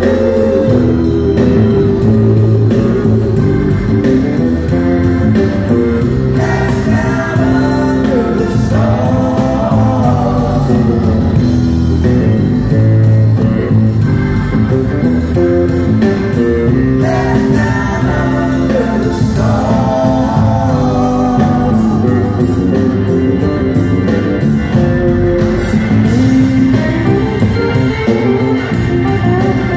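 Live rock band playing a song with organ, electric guitars, bass and drums, with singing over it.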